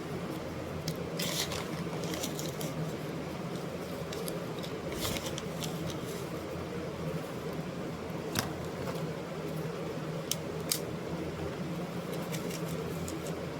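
Steady low hum with scattered sharp clicks and a few short scraping rustles.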